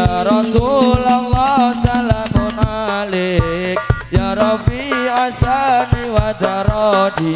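Live sholawat devotional music: an ornamented, gliding melody over a held low tone, with a steady pattern of hand-drum strokes underneath.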